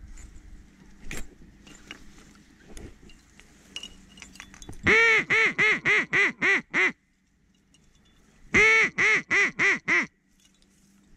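Two series of loud, close duck quacks in the mallard style, seven quacks and then six, the first quack of each series the longest. A few faint clicks and rustles come before them.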